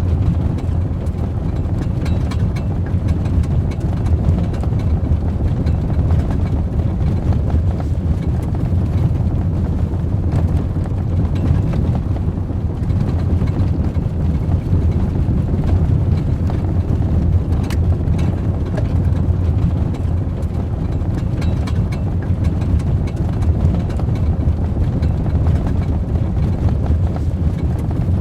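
Ford Raptor pickup truck engine running at a steady pace: a low, even rumble that neither revs up nor dies away, with faint scattered clicks over it.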